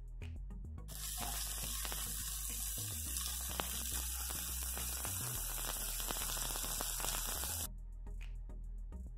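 Asparagus pieces sizzling in oil in a nonstick skillet: a steady hiss that starts about a second in and cuts off suddenly near the end, over soft background music.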